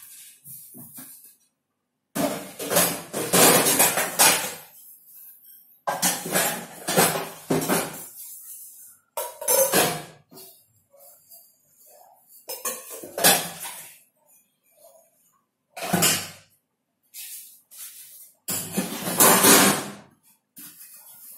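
Steel dishes and glasses clattering and scraping at a kitchen sink as they are washed and rinsed. The sound comes in bursts of one to two seconds, with short pauses between.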